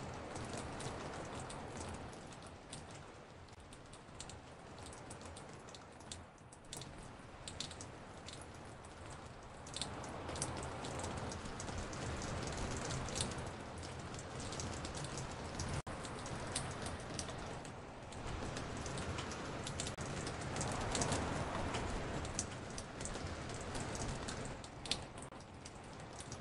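Recorded rain on a porch: many separate raindrops dripping and ticking, layered over a steady rain hiss. The rain grows louder about ten seconds in and is fullest around twenty seconds.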